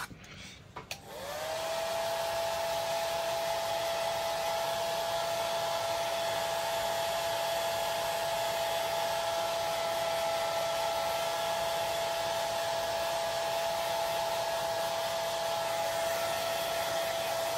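Hair dryer switched on about a second in, spinning up briefly and then running steadily with a steady whine, drying freshly applied chalk paste.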